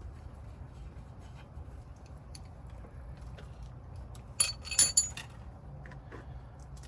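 Metal clinking: a quick cluster of three or four ringing metal-on-metal clinks about four and a half seconds in, over a low steady hum.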